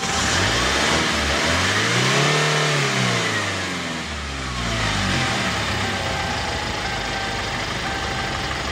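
Kia K2500 four-cylinder diesel engine running with a freshly rebuilt fuel injector: it revs up once and drops back down between about one and four seconds in, then settles into an even idle with no misfire.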